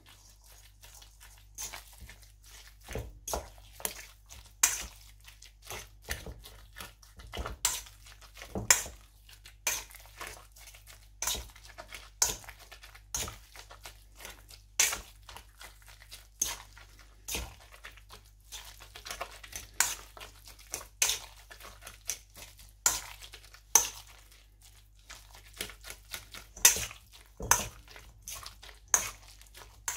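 Fork clinking and scraping against a stainless steel bowl while mixing ground beef with eggs and salt: irregular sharp taps, about one or two a second.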